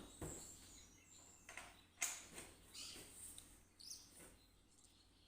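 Near silence with faint bird chirps and a few soft clicks or rustles scattered through it; no engine or drill is running.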